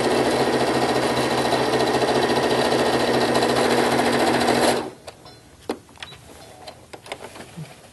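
Baby Lock electric sewing machine running at a steady speed, stitching a side seam through cotton shirt fabric, then stopping abruptly about five seconds in. A few faint clicks follow.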